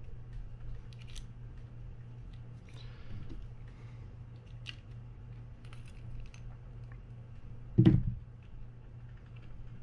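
Light clicks and taps from small metal gears and parts being handled and pressed into place inside an open fishing reel frame, with one loud, short thump about eight seconds in.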